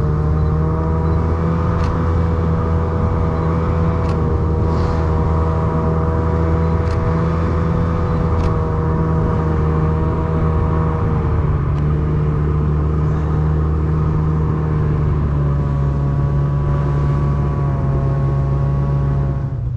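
Snowmobile engine running steadily, with its engine note shifting slightly a couple of times.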